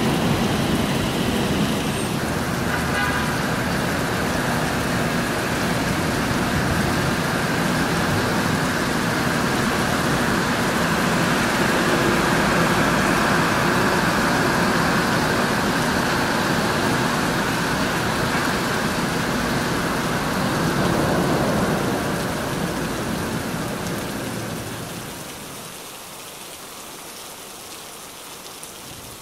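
Steady rain with road traffic noise beneath it, an even hiss with no thunderclaps, fading down about three quarters of the way through.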